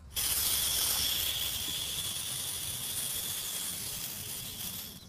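A steady hiss with a thin high whistle running through it, starting suddenly and fading out near the end.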